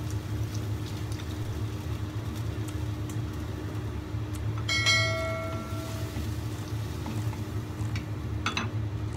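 Steady low kitchen hum, with a single bell-like ding about halfway through that rings out for about a second. A few light knocks come near the end as a wooden spatula stirs the wok.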